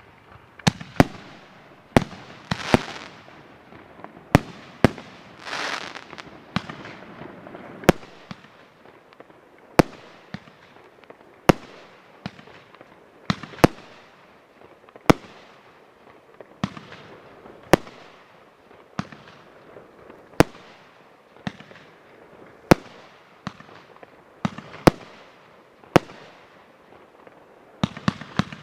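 Fireworks fired from racks of tubes linked by fuse: a string of sharp bangs about one to two seconds apart, each ringing out briefly. There is a hissing rush about three seconds in and another about six seconds in, and the bangs come quicker near the end.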